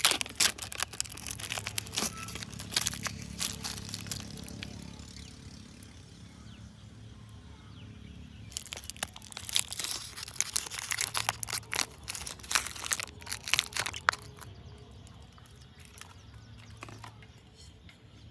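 A sealed lid being peeled off a plastic pudding-jelly cup, crinkling and crackling, then the thin plastic cup crackling as it is squeezed to push the jelly out. The crackling comes in two runs, a pause of a few seconds between them, and thins out near the end.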